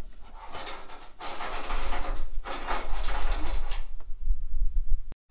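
Jiggler siphon hose being shaken in a car's fuel tank: the marble check valve in its brass end rattles and the hose scrapes around in three bursts of about a second each, pumping fuel up the hose to start the siphon.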